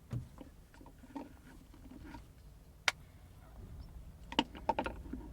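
Handling noise: scattered light clicks and taps of things being moved about by hand, with one sharp click about three seconds in and a quick run of clicks near the end.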